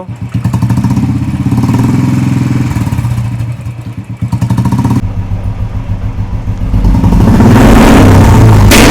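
A Royal Enfield Classic 350's single-cylinder engine, breathing through an HK Indori three-filter silencer, is revved up and let fall back with a deep, bassy thump. From about seven seconds in it runs much louder and harder, and a single sharp pop sounds near the end.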